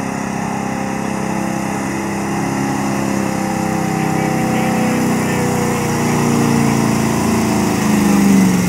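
Pickup truck engine running hard under load as it drags a weight-transfer sled down a dirt pulling track, getting steadily louder as it approaches. Near the end the engine's pitch drops as the revs fall.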